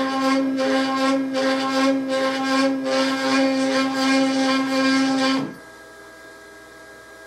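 CNC router's stepper-driven axes making a rapid positioning move, a steady pitched whine that cuts off abruptly about five and a half seconds in, leaving a low hum.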